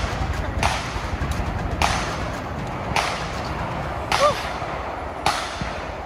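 Five single gunshots, evenly spaced a little over a second apart, each a sharp crack with a short echo, over a low rumble.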